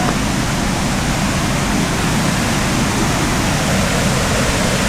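Waterfall pouring into its pool, a steady loud rush of water.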